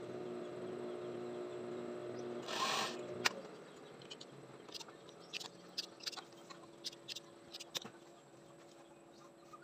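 Juki industrial sewing machine running with a steady hum as it sews through curtain fabric, stopping about three seconds in with a sharp click. Then a series of light clicks and fabric rustling as the work is pulled out from under the presser foot and handled.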